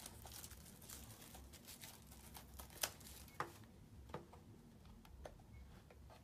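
Faint crinkling and handling of trading-card packaging as a box of cards is opened, with a few sharp clicks in the middle.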